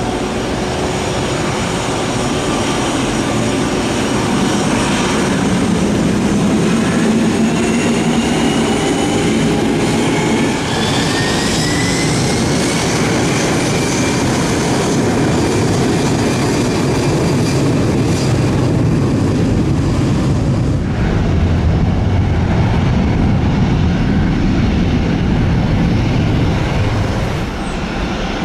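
Boeing 757 jet engines spooling up to takeoff thrust: a rising whine about ten to thirteen seconds in over a loud, steady roar of jet blast that carries on as the airliner rolls away down the runway.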